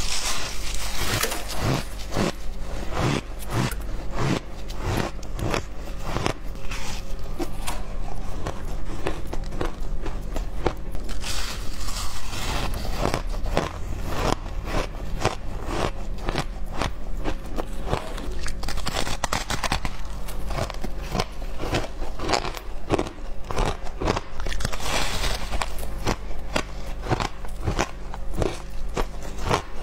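Close-miked biting and chewing of packed shaved ice: a rapid, irregular series of crisp crunches that runs through the whole stretch, over a steady low hum.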